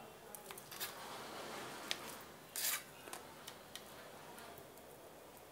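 Faint kitchen handling around a frying pan: a few light clicks and knocks, with one brief louder scrape about two and a half seconds in.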